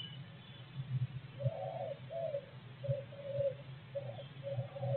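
A bird calling outside in a run of short, low, repeated notes, starting about a second and a half in, over a steady low hum. A brief high note sounds right at the start.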